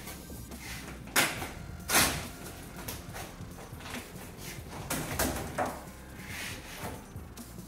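Matte black vinyl wrap film being pulled back off a car bonnet and handled, giving several short swishing rustles. The two loudest come sharply about a second and two seconds in, with softer ones later.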